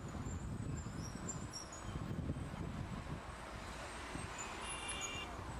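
Street ambience of a busy open square: a steady low rumble of traffic and crowd, with faint high bird chirps. Near the end comes a short, high horn beep.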